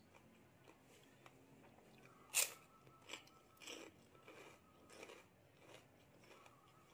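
A crisp bite into a piece of Thai pork crackling (kaep mu), loudest about two seconds in, then several crunchy chews at a steady pace.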